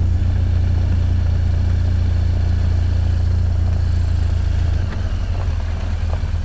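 Motorcycle running at road speed, with heavy wind rumble on the rider's microphone. About five seconds in, the rumble eases and turns choppier.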